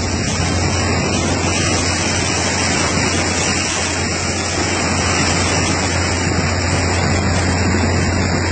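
Rough river water surging and splashing over the bow deck of a boat, a steady loud rush of water that keeps coming aboard. A steady low hum of the boat's engine runs beneath it.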